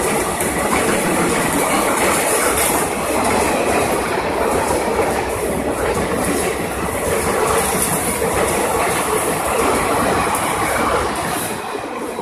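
Passenger coaches of an Indian Railways express rolling past, their wheels clattering over the rail joints in a steady rush of noise. The noise dies away near the end as the last coach goes by.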